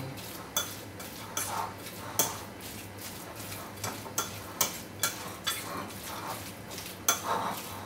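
Metal fork stirring and mashing a thick fish paste in a ceramic bowl, clicking and scraping against the bowl in quick, irregular strokes about twice a second.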